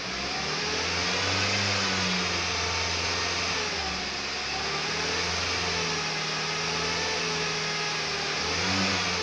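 SsangYong New Actyon engine held at raised revs, with a thin whistle riding on the engine note that rises and falls in pitch as the revs waver. The whistle sets in from about 2300 rpm, and its cause is unknown to the owner.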